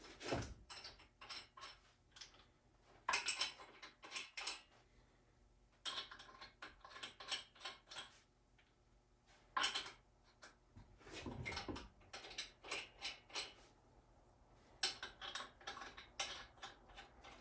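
Scattered metallic clinks and clicks in short clusters with quiet gaps, from the front wheel being fitted back onto the hub and its lug nuts threaded on and run down.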